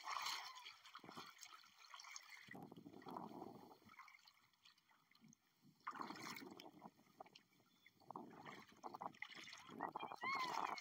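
Shallow seawater sloshing and trickling in irregular splashes, coming and going every second or two.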